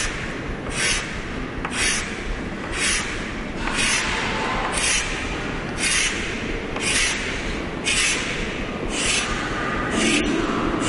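Chalk scraping across a chalkboard in a steady series of short strokes, about one a second, as parallel hatching lines are drawn.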